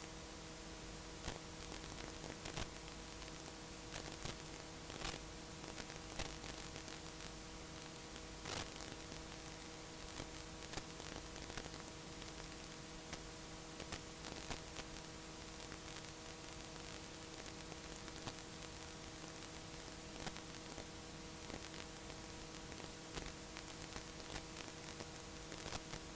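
Blank analog videotape playing: a steady hiss with a hum of several tones, broken by scattered clicks and crackles.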